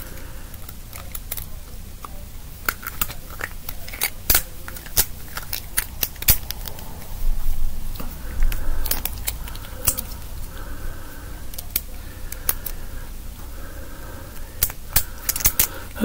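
Scattered light metallic clicks and scrapes of a thin broken pick wire being worked into the keyway of a small brass two-lever padlock, feeling for a way around the internal peg to lift the levers. The clicks come irregularly and bunch together near the end.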